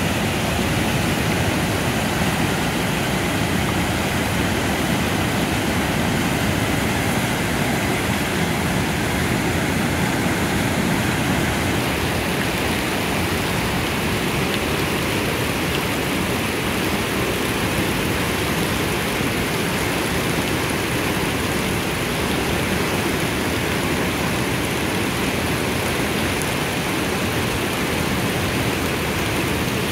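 Muddy stream in spate after heavy rain, rushing and churning over rocks: a steady, loud rush of water.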